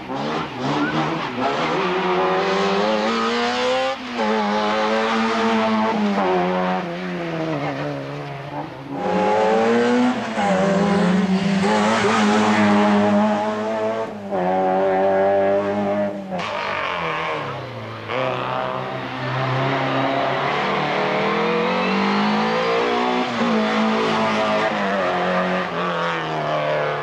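Racing hatchbacks on a hillclimb course, their engines revving hard and dropping through gear changes and corners as several cars pass one after another. The engine note rises and falls again and again, broken by abrupt cuts between cars.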